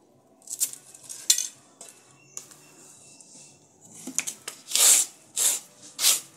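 A long green leaf being scraped on a wooden board by hand to strip away its pulp and free the fibres. There are a few scattered scrapes at first, then from about four seconds in a run of quick, hissing scraping strokes about two a second.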